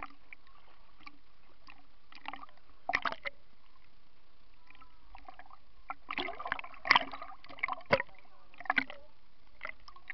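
Swimming-pool water sloshing and splashing around a camera held at the surface, in irregular short bursts that come thickest from about six to nine seconds in.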